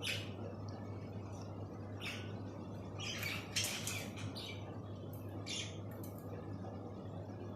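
Pet budgerigars giving short chirps and squawks, several close together about three to four seconds in, over a steady low hum.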